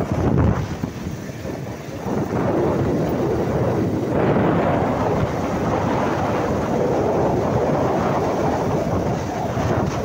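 Wind rushing over the microphone of a moving motorbike, a steady rumbling noise with the bike's road noise beneath it, dipping briefly about a second in.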